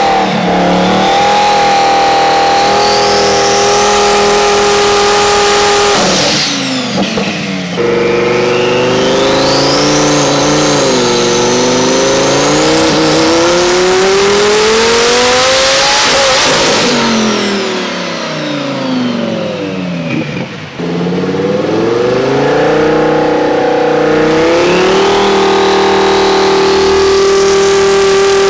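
Twin-turbo Lamborghini Huracán V10 running on a hub dyno under load, with a high turbo whine climbing over the engine note. The revs hold steady at first, dip briefly, then climb for several seconds to a burst of hiss before falling back. They rise again near the end and hold.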